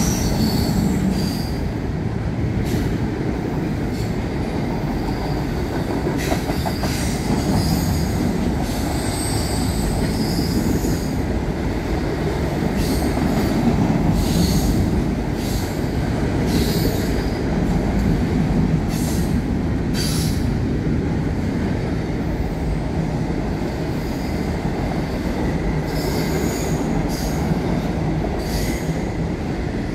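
Double-stack container train rolling across a steel girder bridge: a steady rumble of wheels on the rails, with short high-pitched wheel squeals coming and going.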